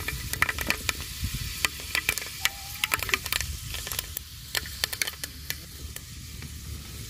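Fenugreek seeds sizzling in hot oil with irregular sharp pops and crackles as they splutter, the sign that the seeds are done.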